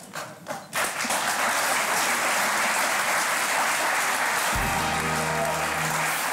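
Studio audience applauding, the clapping setting in about a second in and holding steady. About four and a half seconds in, music with a low bass line starts under the applause.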